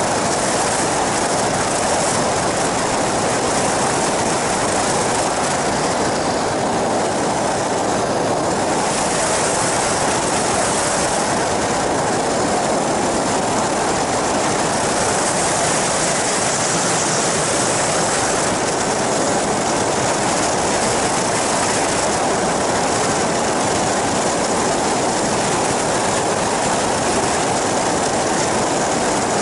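Steady in-flight noise of an ultralight flying boat, a trike wing over an inflatable boat hull, with its pusher-propeller engine running. Rushing wind passes over the wing-mounted camera.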